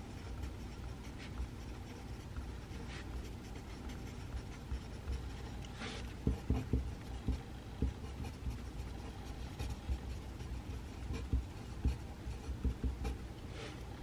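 Pencil writing on paper: short, irregular scratching strokes, coming in a busy run from about halfway through. Under them is a steady low hum of room noise.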